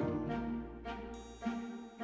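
Instrumental background music: a slow melody of held pitched notes, a new note starting about every half second.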